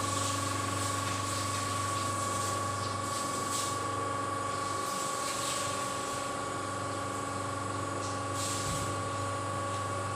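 Stirring motor and drive of a Xuzhong automatic cooking and stirring kettle running with a steady hum, with soft hissing now and then.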